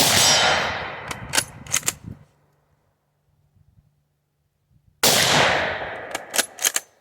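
Two rifle shots from a Mosin-Nagant 91/30 in 7.62x54R, about five seconds apart, each with a long fading boom. After each shot comes a quick run of sharp metallic clicks as the bolt is worked to chamber the next round.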